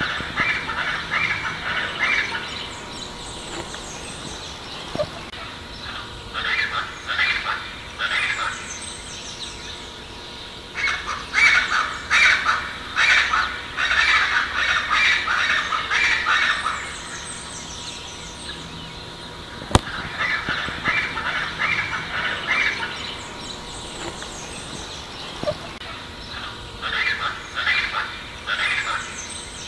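Scaled chachalacas calling: harsh, raspy phrases of rapidly repeated notes in about five bouts with pauses between. The longest and loudest bout comes near the middle.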